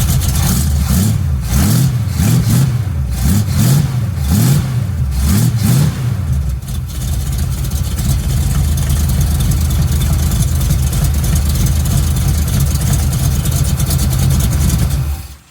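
Chevrolet pickup engine blipped several times, then settling to a steady idle, heard through a dual 3-inch exhaust with glass packs and Flowmaster Super 10 mufflers. The sound stops abruptly near the end.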